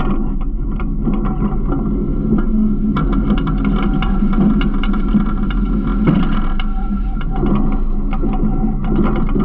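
Garbage truck's diesel engine running steadily, with many small rattles and clanks throughout.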